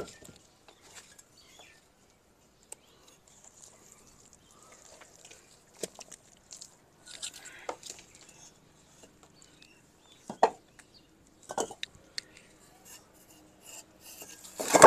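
Bricks being pulled one by one from the top of a brick doorway opening: a few sharp knocks of brick against brick, spaced seconds apart, with a short stretch of brick scraping on brick around the middle.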